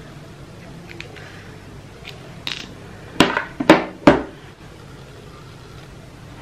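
Handling noise of phones and a SIM tray on a wooden tabletop. A few light clicks, then three sharp knocks within about a second.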